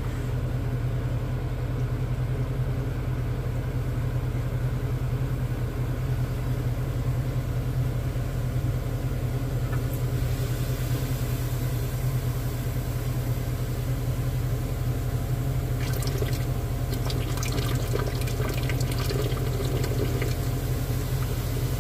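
A steady low mechanical hum, as of a fan or motor, with faint scattered clicks in the last few seconds.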